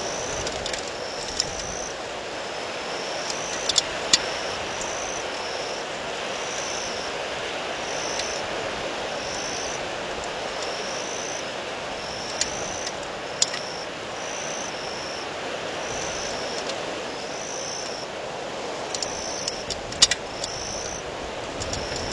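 Windstorm gusting steadily across the microphone, a continuous rushing noise. A short high two-step chirp repeats throughout, about every half to one second, and a few sharp clicks stand out, the loudest near the end.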